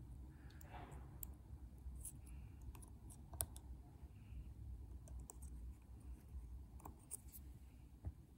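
Faint, irregular small clicks of lock picking tools working inside a lock as the pins are picked.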